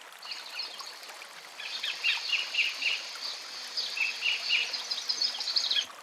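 Kingfisher calling: a long run of short, shrill, high-pitched piping notes, sparse at first and coming quickly from about a second and a half in, stopping just before the end, over a steady background hiss.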